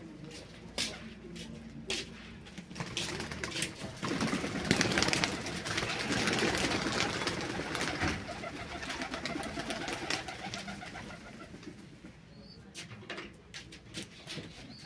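Domestic pigeons cooing, with a few knocks early on and several seconds of loud rustling noise in the middle as birds are handled in the loft.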